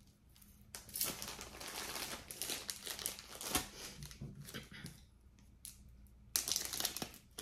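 Packaging crinkling as it is handled to get at the next piece of jewelry. It runs from about a second in for several seconds, eases off, then comes again briefly near the end.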